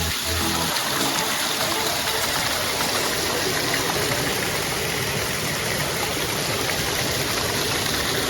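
Waterfall rushing and splashing close by: a steady, loud noise of falling water that does not change.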